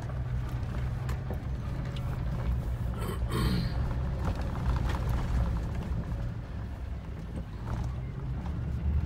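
Vehicle cabin on a gravel road: a steady low engine drone with tyre noise, small clicks and rattles from the gravel, and a brief hiss about three seconds in.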